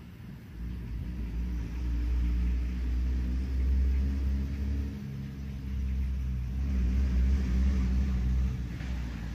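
Low engine rumble of passing road vehicles, swelling and fading twice.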